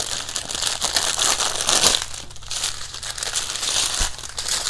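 Small plastic bags of diamond painting drills crinkling as they are handled. The rustling is continuous for about two seconds, then comes in shorter bursts.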